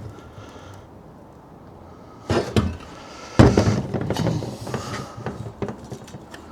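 Metal parts and tools clanking: a couple of sharp knocks about two seconds in, then a heavy clank followed by a run of rattling knocks that dies away.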